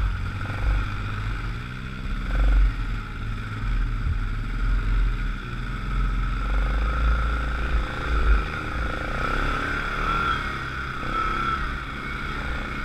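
ATV engine running at low speed while crawling over rough trail in four-wheel-drive low, its pitch rising and falling several times in the second half.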